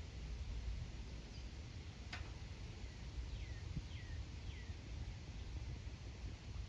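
A bird giving a few short chirps, each falling in pitch, over a low background rumble, with one sharp tick about two seconds in.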